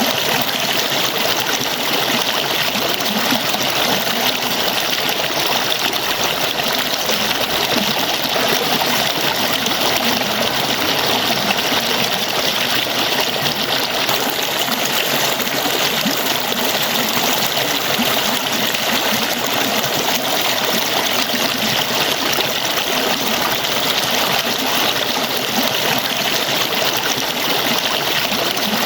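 Falling water splashing steadily: an even, hissing rush with little low rumble and no change in level.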